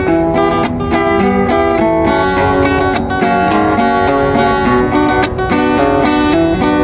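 Acoustic guitar strummed, playing a pop ballad's chord accompaniment with no singing.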